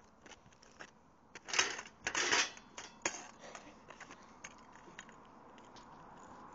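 Scattered light clicks and knocks of hard objects, with two louder scraping clatters about one and a half and two seconds in.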